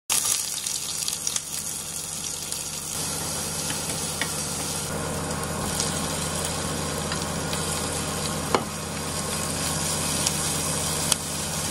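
Minced meat and diced onions sizzling in oil in a nonstick frying pan while being stirred with a wooden spatula, a steady frying hiss over a low hum. A couple of sharp knocks from the spatula on the pan come in the second half.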